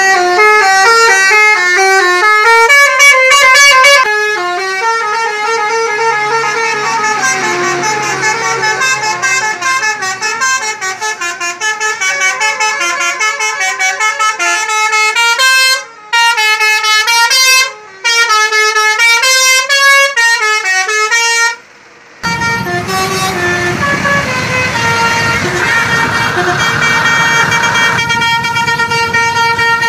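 Bus telolet 'basuri' horn, a multi-note musical bus horn, playing a tune of stepping pitched notes, loud. It breaks off briefly a few times, and in the last third plays over a broad rumbling noise.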